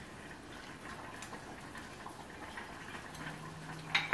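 Quiet kitchen sounds of stew being ladled from a pot into a bowl: a few faint clinks of utensils, then a sharp clink of dishware near the end.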